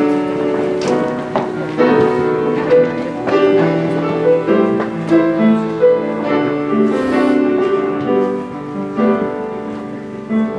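Keyboard-led instrumental introduction to a praise song, with piano notes over sustained chords before the congregation begins singing.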